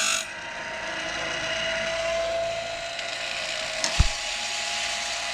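Woodland Mills Grindlux 4000 sawmill blade sharpener running between teeth: a steady motor hum and whine, with a single sharp click about four seconds in. A loud grinding pass on a tooth cuts off just after the start.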